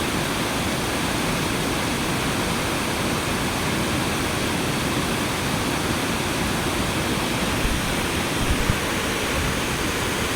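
Steady rushing of water, even in level, with a few soft low thumps about eight seconds in.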